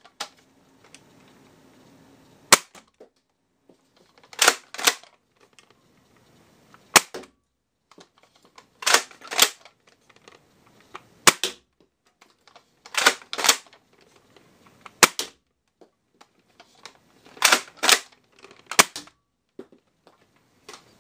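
Modified Nerf Alpha Trooper, a pump-action spring-powered dart blaster with an upgrade spring kit, being primed and fired again and again: sharp plastic clacks in a repeating pattern of a quick pair then a single, about every four seconds.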